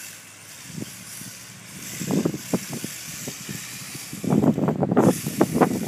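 Wind buffeting the phone microphone in irregular low rumbling gusts over a faint hiss, briefly around two seconds in and then heavily and continuously from about four seconds.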